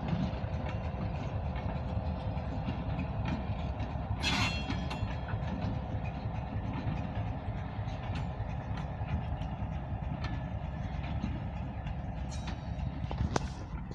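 A short diesel freight train rolling past with a steady low rumble and a faint steady hum for the first few seconds. There is a brief sharp metallic sound about four seconds in, and a few clicks near the end.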